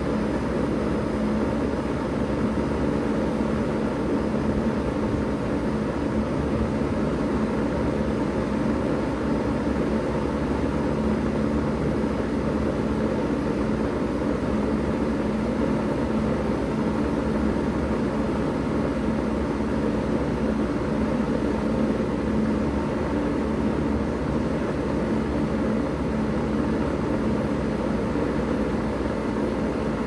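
2000 Bard 3-ton wall-mounted heat pump running steadily in cooling mode: the rush of the condenser fan's air over a steady low hum from the compressor.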